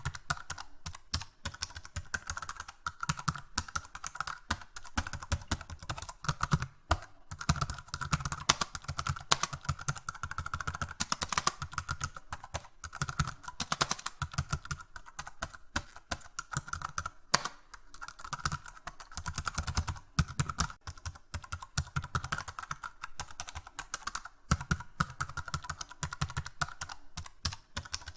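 Fast, continuous typing on a keyboard: a dense run of key clicks with a few brief pauses.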